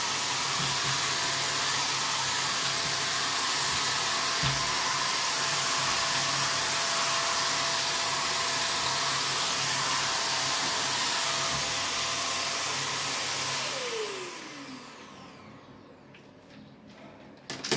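INALSA Dura Clean 800 W handheld vacuum cleaner running steadily with its brush attachment fitted, with a single bump about four seconds in. About fourteen seconds in it is switched off, and the motor winds down with a falling whine.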